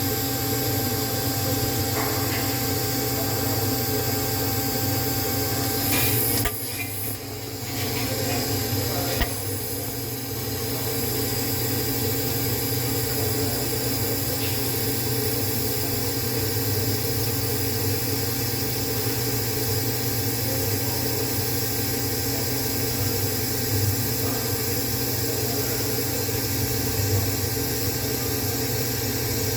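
Steady hiss and hum of TIG welding equipment at work on stainless steel. The sound drops for a few seconds about six seconds in, then picks back up.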